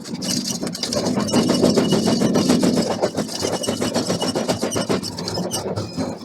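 A machine running with a fast, even rattle of many knocks a second over a steady hum.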